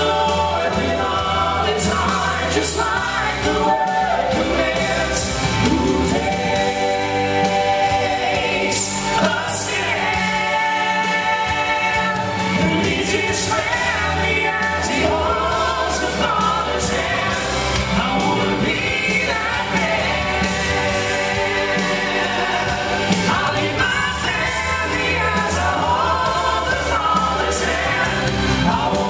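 Southern gospel male vocal group singing in harmony into handheld microphones.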